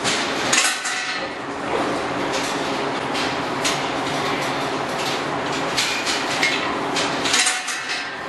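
Steel sow-stall gate hardware clanking and rattling, with repeated sharp metal knocks, a cluster near the start and another near the end, over a steady background noise.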